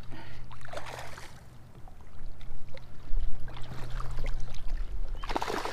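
Water splashing as a hooked smallmouth bass thrashes at the surface beside a jet ski's hull while being landed, in short bursts about a second in and again near the end. A steady low hum runs underneath.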